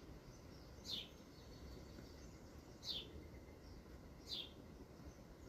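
A bird calling faintly: three short, high chirps that each sweep downward, about one and a half to two seconds apart, over a low steady background noise.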